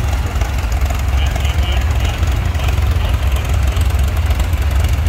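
Engine of a vintage steel-wheeled tractor running steadily with a low, rapid pulsing as it drives past, with faint crowd talk.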